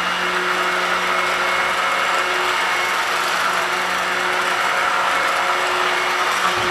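Handheld stick blender running steadily with an even motor hum, its blade submerged in cold-process soap batter, blending it toward trace.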